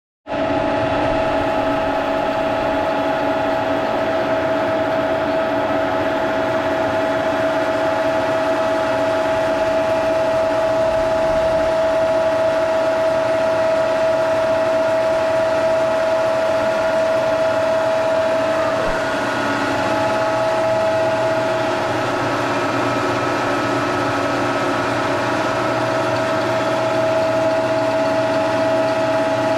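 Brown & Sharpe milling machine running steadily, a constant hum with a steady high whine from its drive, dipping slightly once about two-thirds of the way through.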